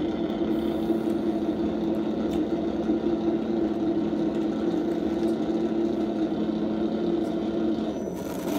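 Sound kit on an Axial SCX10 RC crawler playing a simulated truck engine idling steadily through its small speaker, the note changing near the end.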